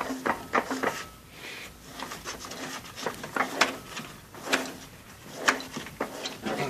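A series of sharp metal clicks and knocks as a Lada Niva's removed propeller shaft is handled and its universal joint (cross) worked by hand, checked as the source of a squeak.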